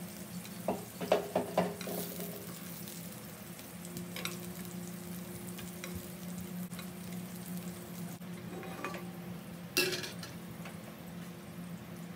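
Kebab aroog patties sizzling in hot oil in a non-stick frying pan. Metal tongs click against the pan several times about a second in as patties are lifted out, and there is one louder metal clank near the end.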